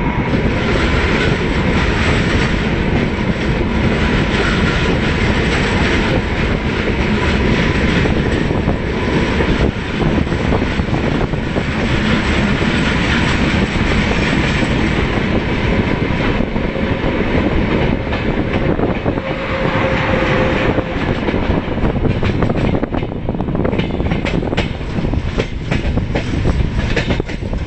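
Passenger express train running, heard from an open coach doorway: steady rumble and wind with the wheels clicking over rail joints, the clicks more distinct near the end. The noise is thrown back loudly by a line of freight wagons passing close alongside.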